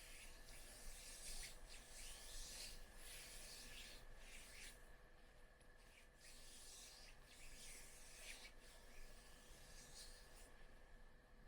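Near silence with faint rubbing and rustling in patches, broken by short pauses, over a faint steady electrical hum.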